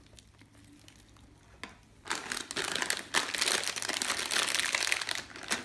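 Shiny plastic Model Magic modeling-compound pouch crinkling as it is handled, starting about two seconds in and lasting about three and a half seconds. Before that there are only faint soft handling sounds.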